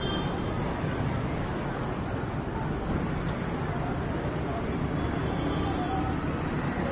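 Steady outdoor traffic noise with faint distant voices.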